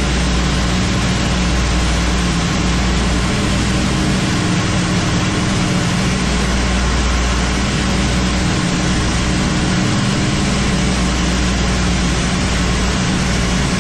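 Piston aircraft engines and propellers of a multi-engine warbird, heard inside its cockpit in formation flight: a loud, steady low drone under an even rushing hiss of air noise, unchanging throughout.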